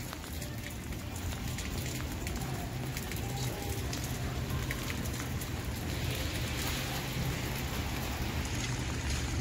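Steady rain falling on a wet city street, with many small sharp ticks through it and a low steady rumble underneath.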